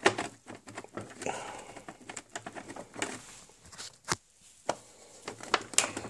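Plastic top panel of a Vax Rapide carpet cleaner being worked loose and lifted off by hand: irregular plastic clicks, knocks and scraping, with a few sharp knocks in the last two seconds.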